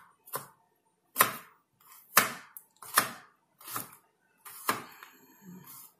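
Kitchen knife slicing through fresh rhizomes onto a plastic cutting board: about six sharp cuts, roughly one a second.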